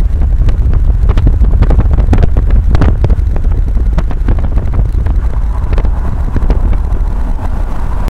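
Loud wind buffeting the microphone over the low rumble of a car driving along a road, with irregular gusty thumps throughout. It cuts off suddenly at the end.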